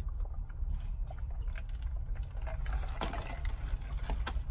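Steady low rumble in a car cabin, with scattered small clicks, rustles and mouth noises of eating and sipping a fast-food meal; a few sharper clicks come about three seconds in.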